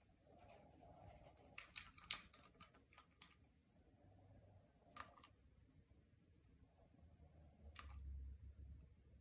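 Near silence with faint clicks and taps from handling small tools and a cup over a silicone resin mould: a quick cluster about two seconds in, then single clicks about five and eight seconds in.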